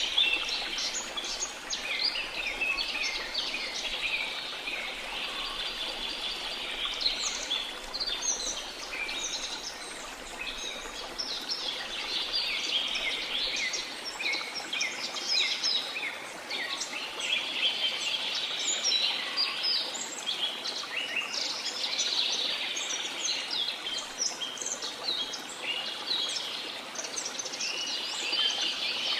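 Many birds chirping in a continuous, busy chorus over a steady rush of falling water from a waterfall.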